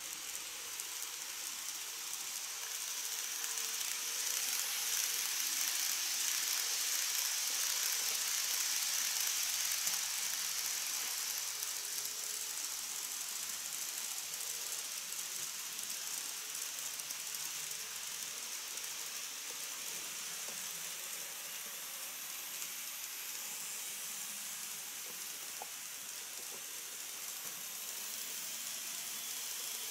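KATO N-gauge model train running along the track: a steady, high-pitched whirring hiss of the wheels and motor. It swells over the first several seconds and then slowly fades.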